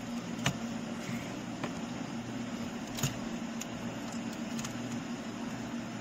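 Plastic dashboard trim bezel of a Dodge Ram being pulled loose by hand, its retaining clips giving sharp clicks. The loudest click comes about half a second in and another about three seconds in, with fainter ones between, all over a steady low hum.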